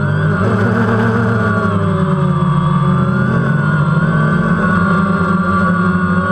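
DJI Phantom quadcopter's electric motors and propellers buzzing steadily in flight, heard close up from the GoPro mounted on it; the pitch of the hum wavers a little as the motors speed up and slow down.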